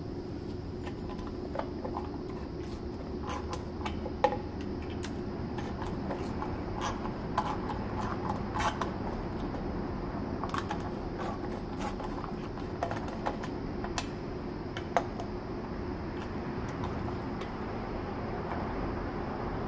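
Irregular metallic clicks and ticks from a hand tool working the acorn nuts and studs off a Honda B18C1 valve cover. The nuts are binding on their studs and turning them out together. A steady low hum runs underneath, with the clicks thickest in the first half and a sharper click about four seconds in and again near fifteen seconds.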